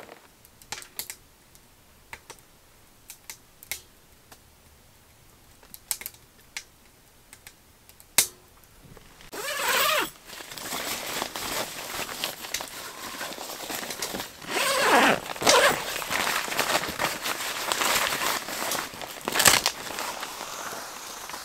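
Tent fabric rustling and crinkling as a vent flap in the tent wall is pulled open and adjusted by hand, with several louder rips and sweeps. This starts about halfway through, after several seconds of faint scattered clicks.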